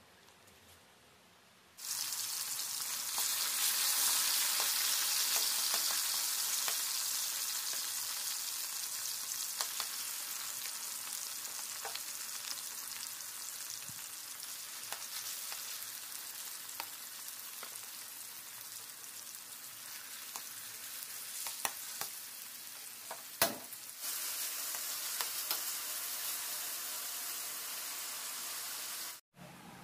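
Marinated chicken pieces frying in hot oil in a wok: a loud, steady sizzle that starts abruptly about two seconds in and slowly eases. A single sharp knock sounds near the end.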